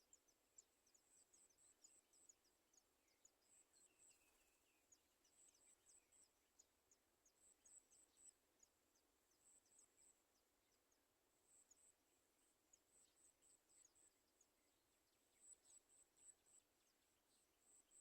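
Faint high-pitched chirping: short notes in quick runs of three to five, repeating every second or two, with fainter quick downward ticks between them.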